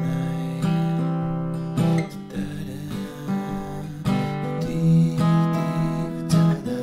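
Small-bodied acoustic guitar played fingerstyle in a country-style arrangement: picked chords ring out over low bass notes, with a fresh chord struck every second or so.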